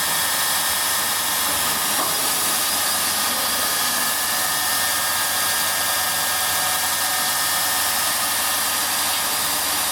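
CNC abrasive-belt polishing machine running steadily: an even high hiss with a few faint, steady whining tones.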